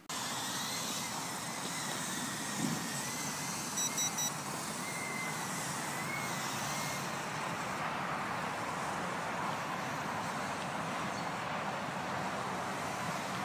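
Furibee H801 mini quadcopter flying outdoors: a steady wash of propeller and wind noise with a faint wavering whine, and three quick high beeps about four seconds in.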